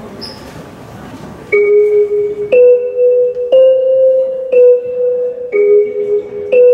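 Low crowd murmur, then about a second and a half in a dance track starts loudly with a bell-like keyboard note struck once a second, its pitch shifting between a few notes.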